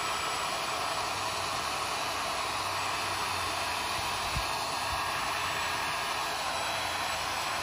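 Electric heat gun blowing steadily, shrinking a glue-lined heat-shrink butt connector over a crimped wire splice.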